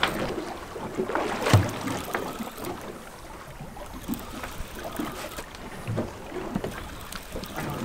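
Water slapping against a fishing boat's hull on a choppy sea, with wind on the microphone and scattered knocks, the loudest about one and a half seconds in.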